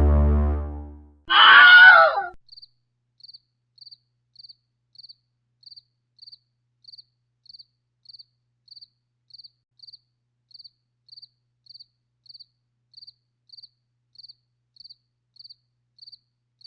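Dark low string music ends with a short, loud, shrill screech, followed by a cricket chirping at a steady beat, a little under two chirps a second, over dead silence.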